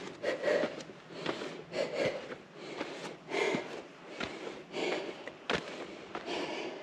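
A hiker breathing hard from the exertion of a steep uphill climb, a loud breath about every second and a half. Short sharp footsteps on rock and gravel fall between the breaths.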